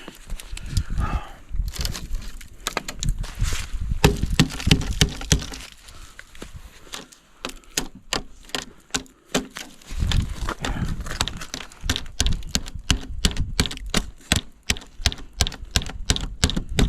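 Ice-crusted snow and frozen mud crunching and cracking underfoot: many sharp, irregular cracks, crowded most densely in the second half.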